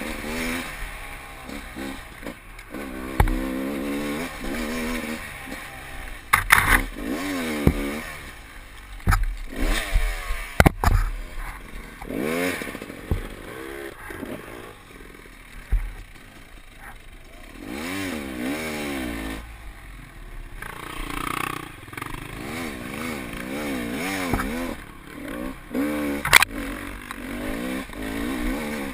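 Enduro dirt bike engine revving up and down over and over as it is ridden, its pitch rising and falling every second or two. Sharp knocks and clatter break in every few seconds.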